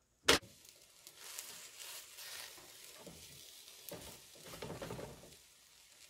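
Banana-and-egg pancake batter frying in a nonstick frying pan, with a steady faint sizzle that grows briefly louder about four to five seconds in. A single sharp click comes just after the start.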